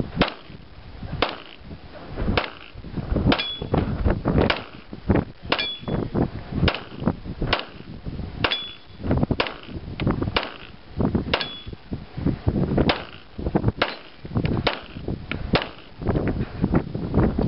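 Handgun fired at a steady pace, roughly one shot a second, some fifteen shots in all. Several shots are followed by a brief high ping as the bullet strikes the steel spinner target.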